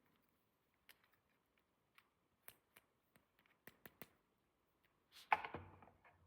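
Small plastic toy pieces being handled: a dozen or so light, sharp clicks and taps, then a louder scrape about five seconds in.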